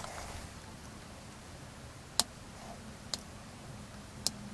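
Plastic nippers snipping small pieces off a plastic Lego antenna part: three sharp clicks about a second apart, the first the loudest.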